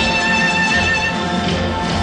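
Background music: a loud orchestral theme with sustained high notes over a steady low bass.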